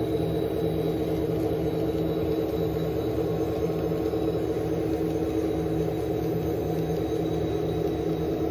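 N scale model train running past: a steady hum from the locomotive's motor and a rumble of wheels on the track.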